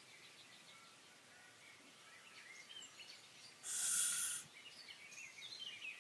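Small birds chirping faintly, with many short, quick calls. About halfway through, a short, loud burst of hiss lasts under a second.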